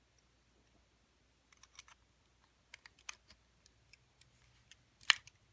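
Small metallic clicks and taps of a 2-in-1 lever lock pick being worked into the keyway of a steel lever padlock, scattered from about a second and a half in, with one sharper, louder click near the end.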